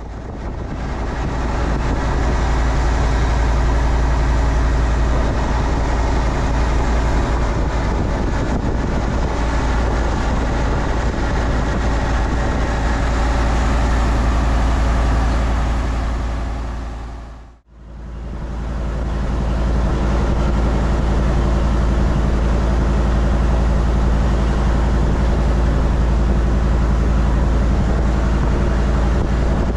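Wooden riverboat's inboard engine running steadily under way: a loud, even drone with a heavy low rumble. It dips out briefly about two-thirds of the way through and builds back up.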